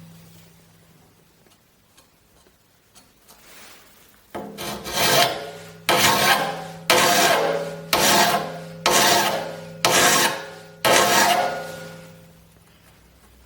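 A hand file drawn across the teeth of an antique crosscut saw blade, sharpening them. After a quiet start there are about eight strokes, roughly one a second, each leaving a faint ring from the steel blade.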